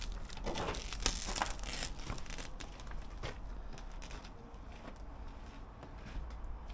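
Rubber window seal being prised away from a cab's front glass with a screwdriver: scraping, crackling and tearing noises with scattered sharp clicks, busiest in the first second or two and then sparser.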